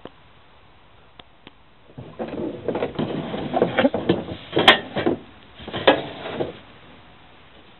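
Sheet-metal electrical box being handled: a few light clicks, then from about two seconds in, several seconds of scraping and clattering metal with two sharper knocks.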